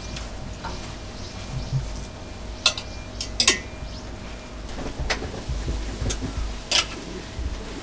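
A French bulldog moving about on the floor at a sliding door: a handful of short, sharp clicks and taps over a low, steady rumble.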